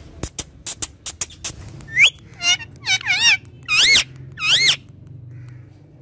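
Ring-necked parakeet giving a series of about five loud, swooping whistled calls, each rising and falling in pitch, starting about two seconds in, after a quick run of sharp clicks.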